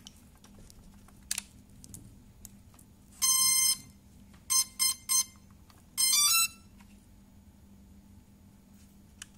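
Cheerson CX-20 quadcopter with an APM flight controller powering up on its freshly connected battery. It gives one long beep, three short beeps, then a quick rising run of tones: its start-up signal.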